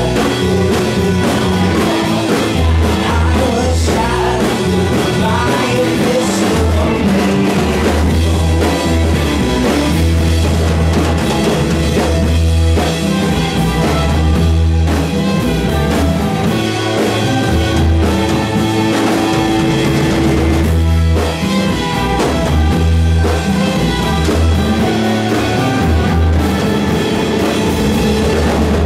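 Live rock band playing, with singing, drum kit, bass and guitar.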